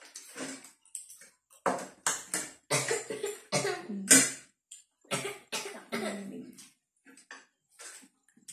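A person coughing repeatedly, a string of short bursts, the loudest about four seconds in.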